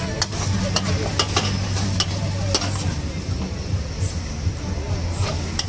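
A metal spatula scraping and clinking against a steel wok as noodles are stir-fried, with food sizzling in the hot wok. The clinks come irregularly over a steady sizzle and a low hum.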